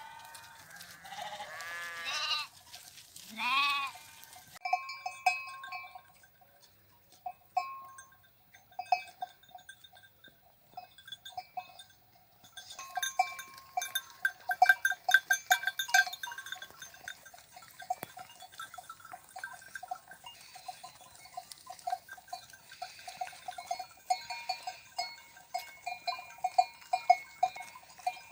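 A few sheep bleat in the first four seconds. Then the bells of a walking flock clank unevenly, sparse with short lulls at first and thick and constant from about halfway on.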